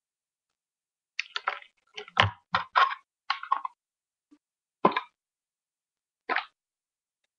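A quick run of short clicks and knocks, about nine in under three seconds, then two single knocks about a second and a half apart.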